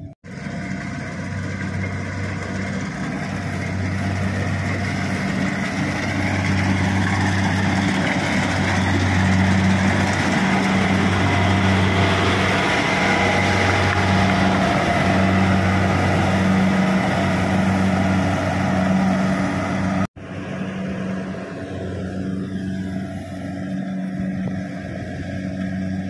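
Kubota DC-70 PRO combine harvester running at work: a steady diesel engine drone mixed with the noise of the threshing machinery, over a low hum that swells and eases in a slow pulse. It is loudest in the middle, cuts off abruptly about twenty seconds in, and then carries on quieter.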